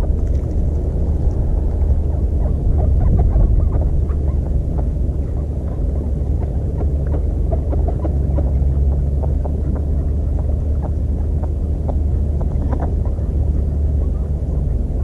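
Steady low rumble, with many small clicks and taps scattered through it.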